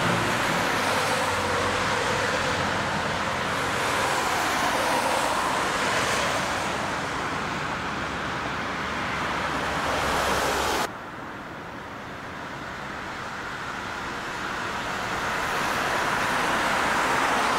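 Car road noise, mostly tyre and engine hiss with no clear engine note. About eleven seconds in it drops suddenly, then grows steadily louder again as a car comes closer.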